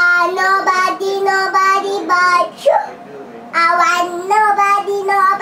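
A little girl singing, in long held notes that step up and down, with a short break in the middle of the phrase before she carries on.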